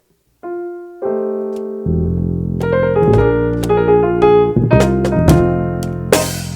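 Jazz trio starting a tune: an electric keyboard plays a single note, then sustained chords. Low bass notes join about two seconds in, light drum taps follow, and a cymbal splashes near the end.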